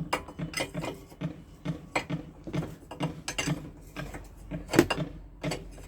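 Quick run of metallic clicks, about three or four a second, the loudest a little before the end, as a 32 mm spanner works the big nut on the scooter's fork steering stem loose.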